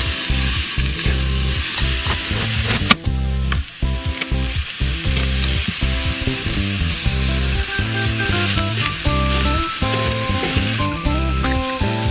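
Mushrooms, asparagus and bacon grease sizzling and frying in a cast iron skillet on a propane camp stove, stirred with a silicone spatula, with a few light clicks near the end. Low steady musical notes run underneath, changing about every half second.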